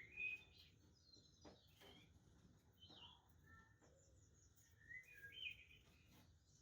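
Budgerigars chirping and warbling softly in short bursts: one at the start, one about three seconds in, and a louder one about five seconds in, with a few faint clicks between them.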